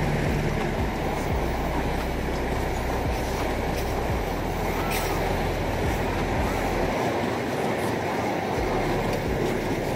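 Passenger train coaches rolling past on the rails: a steady rumble of wheels on track with scattered low knocks, easing off about seven seconds in as the last coach goes by.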